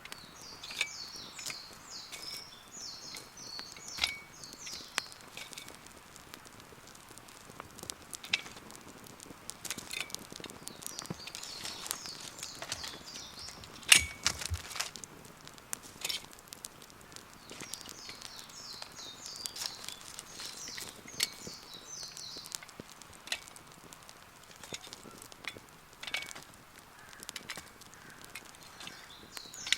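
Wood campfire crackling and popping in irregular snaps, with one loud pop about halfway through. A bird sings bursts of quick high chirps several times in the background.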